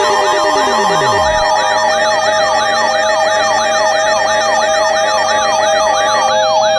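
Layered electronic siren and alarm tones. A yelping siren sweeps up about four times a second over several steady tones and a faster warble higher up, while a long falling tone drops away to nothing about a second and a half in.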